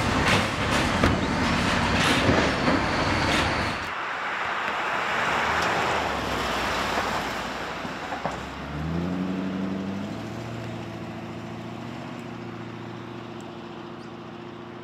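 Road traffic noise with clatter for the first few seconds, then from about nine seconds a steady hum that rises in pitch briefly and then holds, slowly fading.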